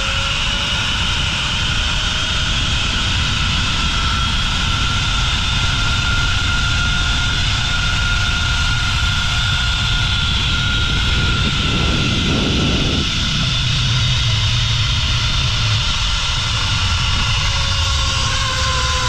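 Zip line trolley pulleys running along the steel cable at speed: a steady high whine that rises in pitch at the start and drops near the end as the ride slows, over heavy wind rush on the microphone.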